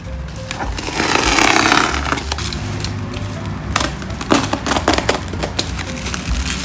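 Cardboard keyboard packaging being handled and opened: a scraping slide about a second in, then a run of knocks and taps.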